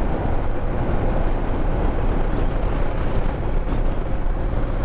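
Wind rushing over a helmet microphone on a Honda Transalp motorcycle at road speed, with the engine running steadily beneath it.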